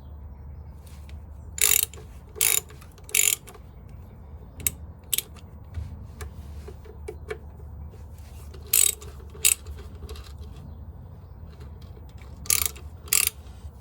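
Ratchet wrench clicking in short runs of back-strokes as 6 mm Allen bolts on a motorcycle's front fork are slackened, in three groups of two or three bursts.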